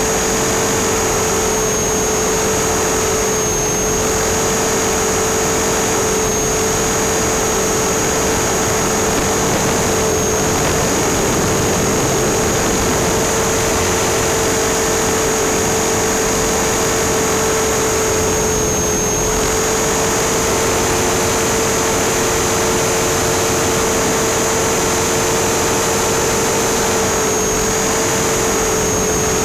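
Align T-REX 450 SE V2 electric RC helicopter in flight, heard through its onboard camera: a steady high motor-and-rotor whine over a wash of rushing noise. The pitch dips briefly a few times as the rotor is loaded in manoeuvres.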